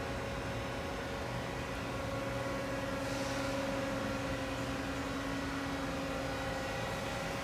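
Daewoo Lynx 200LC CNC lathe running under power: a steady machine hum with several held tones over an even hiss.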